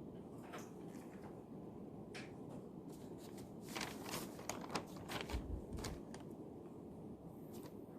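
Paper and desk items being handled while studying: light rustles and small clicks, busiest in the middle, and one dull low thump a little past halfway, over a steady room hum.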